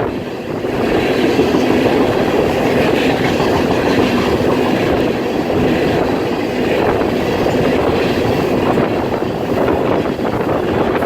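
Norfolk Southern freight train's cars rolling past at speed: a steady loud rumble and clatter of steel wheels on the rails.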